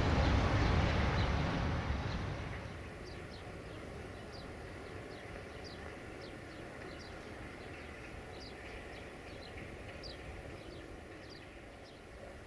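Electroputere 060-DA diesel-electric locomotive, with a Sulzer diesel engine, running as it pulls away; its sound drops off about two seconds in to a fainter steady hum. Birds chirp repeatedly over it.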